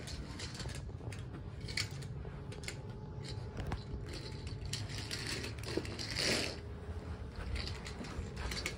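Toy train pushed by hand along Brio wooden railway track: wheels rolling with scattered light clicks and knocks over the track, and a brief rustle about six seconds in.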